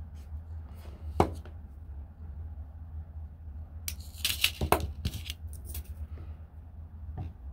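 Thin silver craft wire being handled and gripped with small jewellery pliers: scattered sharp metallic clicks and scrapes, a single click about a second in and a quick cluster around the middle, over a steady low hum.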